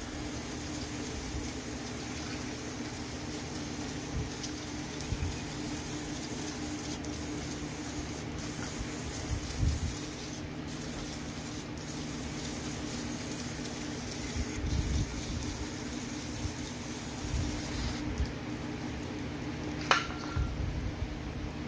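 Aerosol spray can hissing as it is sprayed onto a car's rear drum-brake hub and backing plate, with a couple of short breaks, stopping about eighteen seconds in. A steady low hum runs underneath, and there is a sharp click near the end.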